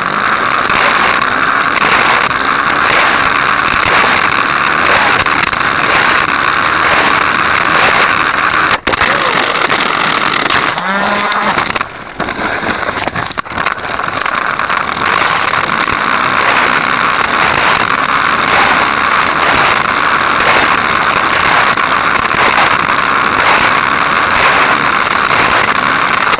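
Hot Wheels Sizzlers car's small electric motor and wheels running at speed on the track, heard through the tiny keychain spycam riding on the car: a loud, steady, buzzy whir, with a short dip about eleven seconds in.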